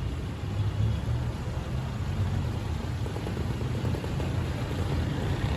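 Street traffic rumble from passing vehicles, a steady low drone.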